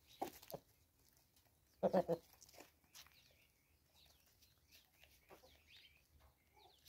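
An animal call of three quick, harsh, pitched notes about two seconds in, with small birds chirping faintly in the background.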